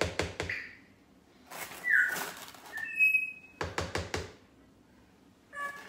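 A spoon knocks and taps against a glass baking dish while whipped topping is spread, in two short clusters. Between the clusters a pet bird gives a few short whistles and chirps: a falling squeal, a thin steady whistle, and a short call near the end.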